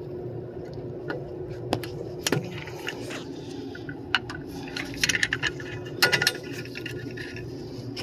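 Steady machinery hum from the rooftop unit, with scattered clicks and scrapes of gloved hands handling a brass-fitted refrigerant pressure gauge. The loudest handling noise is a cluster of clicks and rustling about five to six seconds in.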